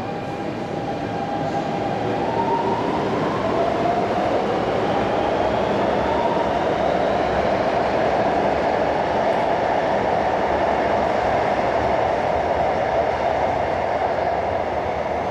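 Shanghai Metro Line 10 10A02-type train pulling out of the station: a whine rises in pitch over the first few seconds as it gets under way. Under it the cars rumble steadily past the platform screen doors, easing off near the end.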